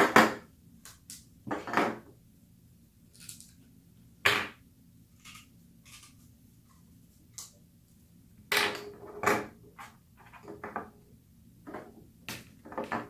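Plastic PVC pipe pieces and fittings knocking and clacking as they are handled, pulled apart and set down, in a string of separate knocks. The loudest come at the very start, about four seconds in, and in a pair around eight to nine seconds in.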